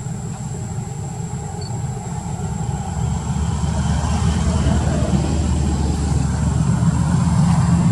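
Low, steady rumble of a running motor, growing louder about three seconds in, with a faint thin high whine above it.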